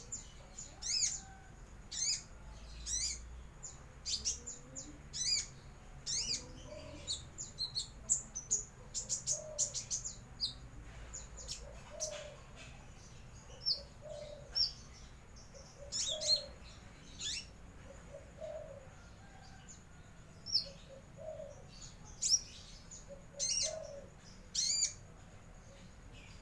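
Young kolibri ninja sunbird chirping: short, high notes, many sliding downward, repeated at irregular intervals. It is a juvenile just starting to open its beak and practise its 'nyiul' whistle.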